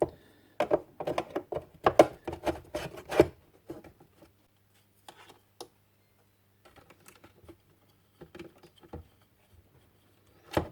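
Radio parts being handled while the speaker is fitted back into the set: a quick run of clicks and knocks in the first few seconds, then scattered faint taps and one sharp click near the end.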